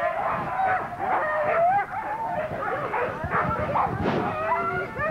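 A pack of sled dogs barking and yelping, many voices overlapping without a break.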